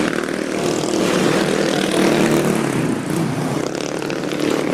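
Road traffic passing close by: a steady, loud engine drone with tyre and road noise. No telolet horn tune sounds.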